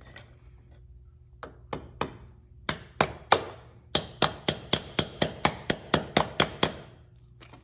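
Hammer tapping a door threshold down onto a concrete floor. A few spaced blows come first, then a quick even run of about a dozen sharp taps, about four a second, each with a short ringing tail.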